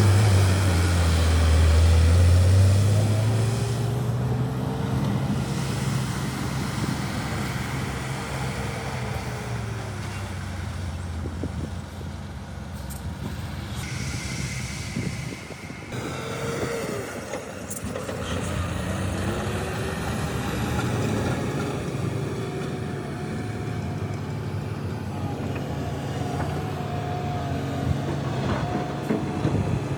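Heavy diesel construction machinery running, with the engine note rising and falling as it works. It is loudest in the first few seconds.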